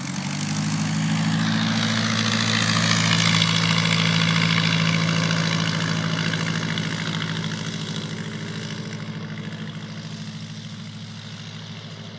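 SE5a biplane's Wolseley Viper V8 engine and propeller passing low: the engine note swells to a peak about three seconds in, then drops in pitch and fades away.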